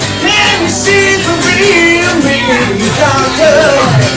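Live band music with a voice singing over it.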